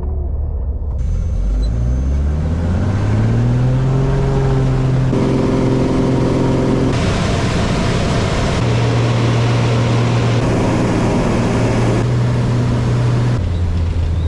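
Small floatplane's engine running loud and close, its pitch rising over the first few seconds as power comes up, then holding a steady drone. The tone and level shift abruptly a few times.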